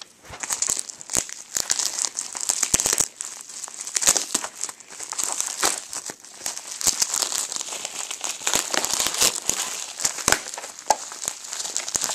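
Packaging being unwrapped by hand: steady crinkling with frequent sharp crackles.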